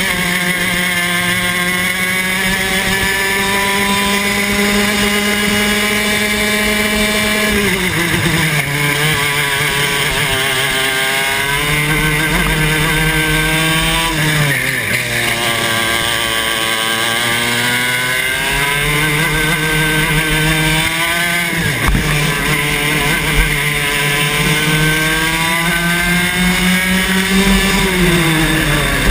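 Club 100 TKM 115cc two-stroke kart engine at racing speed, heard from onboard the kart. It holds high revs on the straights and drops sharply off throttle into corners about eight, fifteen and twenty-two seconds in and again near the end, then climbs back each time.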